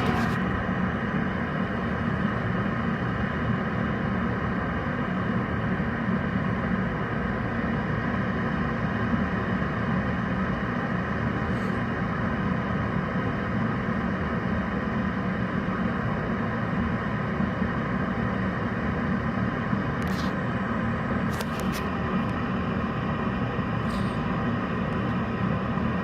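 Gas furnace running steadily during a combustion test: an even rush with a low hum, with a few faint clicks late on.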